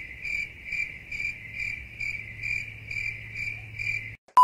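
Carrot being grated on a hand grater: a rhythmic scratchy rasp, about two strokes a second, that cuts off suddenly near the end as a loud steady beep begins.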